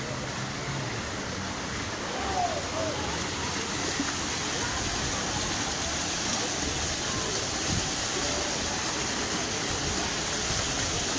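Small rock waterfall splashing into a shallow pool: a steady rush of falling water that grows a little louder about two seconds in.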